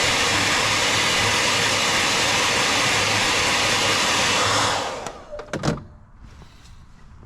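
Fan-assisted heat gun blowing steadily, a loud even rush of air over a motor hum, used to blow leftover water out of the engine's coolant passages. It is switched off about two-thirds of the way in and winds down quickly, followed by a couple of short knocks.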